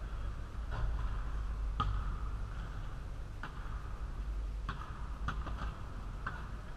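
A basketball on an indoor gym court: a shot strikes the rim about two seconds in, followed by scattered bounces and dribbles on the hard floor, heard as several sharp knocks over a steady low hum.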